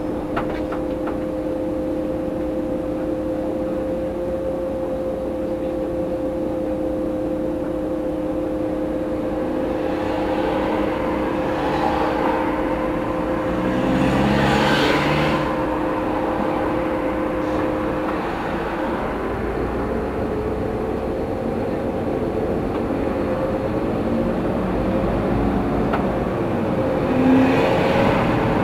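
Road-vehicle sound heard from a vehicle waiting at a crossing and then driving off. A steady hum with two tones stops about two-thirds of the way through, and a car passes about halfway. After that, rising and falling engine notes come in as the vehicle gets under way.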